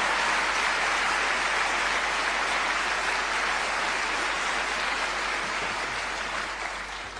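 Large audience applauding in a hall, a dense steady clapping that fades away near the end.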